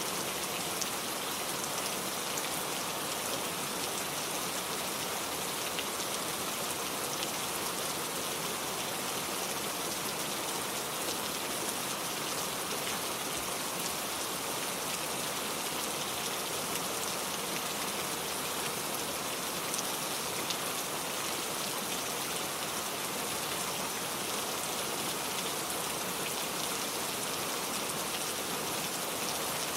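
Heavy rain falling steadily: a dense, even hiss with scattered individual drop ticks.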